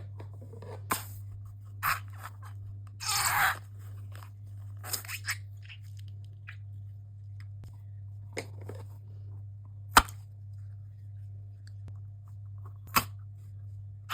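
Slime being squeezed and poked, giving scattered short crisp crunches, a longer crackling stretch about three seconds in and a sharp snap around ten seconds in, over a steady low hum.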